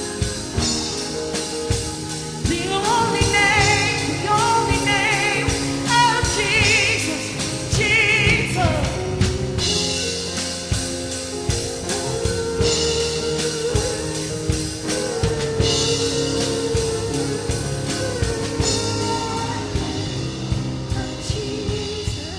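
Live gospel worship band playing, with a drum kit keeping time under a singer whose held, wavering notes with vibrato come a few seconds in.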